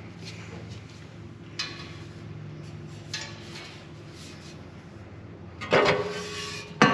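Light metal knocks and scrapes as an aftermarket exhaust baffle is slid back into a motorcycle muffler, over a low steady hum. There are a few sharp knocks, with a louder clatter near the end.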